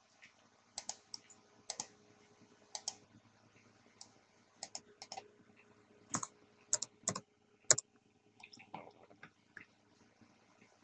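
Computer mouse clicks and keyboard keystrokes. Single sharp clicks come about a second apart, then a quicker run of clicks, then a few lighter key taps.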